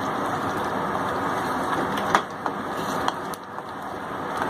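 Chicken korma with curd cooking in a pan on the stove, a steady sizzle, with a couple of short clicks about two and three seconds in.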